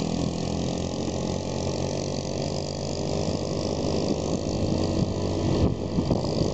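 Small motorcycle engine running steadily while riding at road speed, with wind and road noise. The wind rumble grows rougher about five and a half seconds in.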